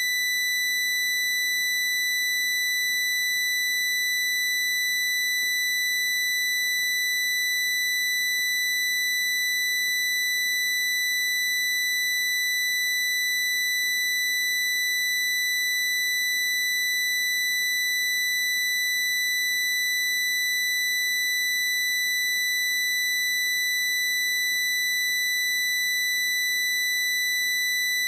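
A loud, steady high-pitched squeal held at one unchanging pitch, with no breaks or wavering.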